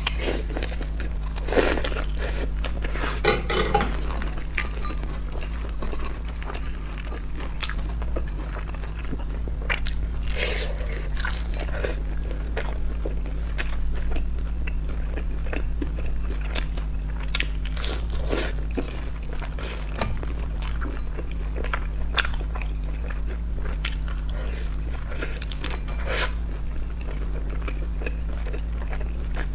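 Close-miked biting and chewing of crisp pan-fried dumplings with a lacy fried skirt: scattered crunches and small clicks, over a steady low hum.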